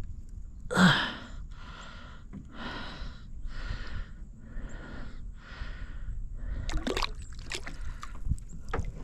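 Rapid, rhythmic panting breaths, about two a second, opening with a louder gasp-like breath about a second in. A few sharp clicks or small splashes follow near the end.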